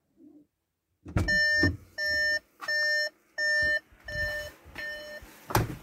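Electronic warning beeper sounding six evenly spaced half-second beeps, about 0.7 s apart, starting about a second in, the last two fainter, with dull low knocks under the first ones.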